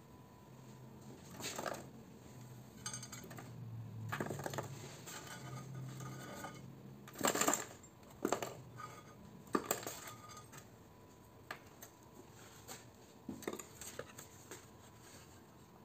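Loose copper transformer winding wire being pressed and shifted by hand, with scattered metallic rustles and light clinks. A cluster of sharper clinks comes between about seven and ten seconds in.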